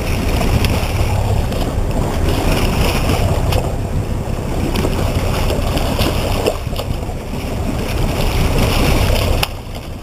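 Wind rumbling on the microphone over sea water splashing and sloshing, as a hooked stingray thrashes at the surface beside a boat. A few short splashes stand out, and the rumble drops away suddenly near the end.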